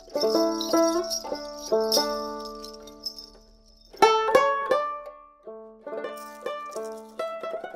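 Background music: a plucked-string tune of picked notes that ring and die away, with short pauses about three and a half seconds and five seconds in.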